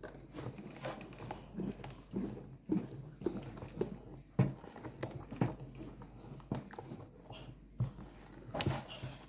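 A spoon stirring thick, wet blended-bean batter in a bowl: irregular soft squelches and short knocks of the spoon, several a second.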